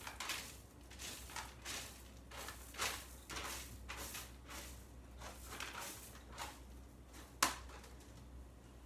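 Small dominoes clicking and clattering softly against each other as they are picked out of a loose pile and set upright in a line, with one sharper click about seven seconds in.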